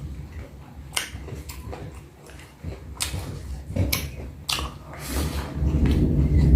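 Close-miked eating sounds: a person chewing a mouthful of rice and food, with a few sharp clicks scattered through and louder, denser chewing near the end.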